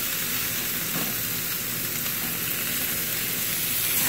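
Skirt-steak and vegetable shish kabobs sizzling steadily on a hot grill grate over charcoal.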